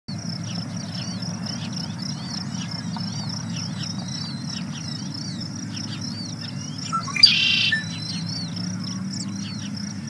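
An unidentified songbird singing a fast, continuous run of short sliding chirps over a steady, high pulsing trill. A louder call cuts in for under a second just after seven seconds.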